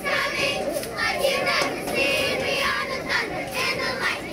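Spectators shouting and cheering, many voices overlapping at once.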